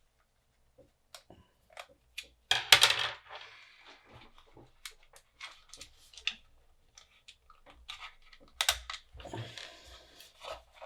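Small parts being handled while a hot air rework station's plastic wand is taken apart: scattered light clicks and taps, with two louder spells of rattling and scraping about two and a half and nine seconds in.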